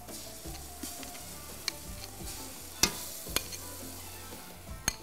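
Onions and garlic sizzling in oil in an aluminium pot over a gas burner as tomato paste is spooned in, with the spoon clinking sharply against the pot and bowl about five times.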